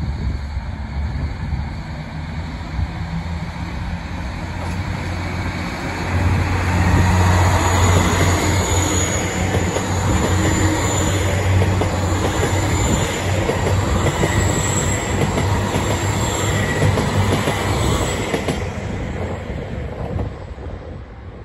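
JR Hokkaido KiHa 261 series diesel limited express passing close by, its diesel engines rumbling deeply, with wheel clatter and thin high squeals from the wheels on the rails. It grows loudest about six seconds in and fades away near the end.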